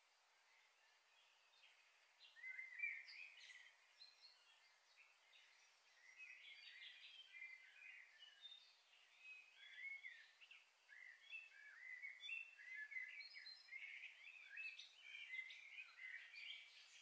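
Faint chirping of small birds: many short, quick chirps, sparse at first and coming thick and fast from about two seconds in.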